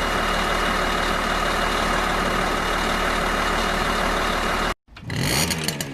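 Truck engine idling steadily, cutting off abruptly near the end. After a brief silence a different sound begins.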